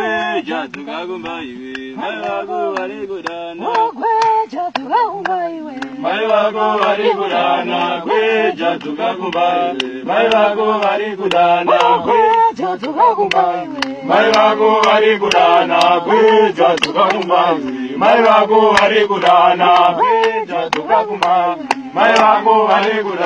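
Men's voices chanting in a sung, drawn-out way, with many short sharp clicks scattered through it.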